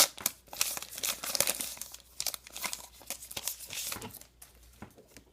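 A baseball card pack's wrapper being torn open and crinkled in the hands, the crackling dying down about four seconds in.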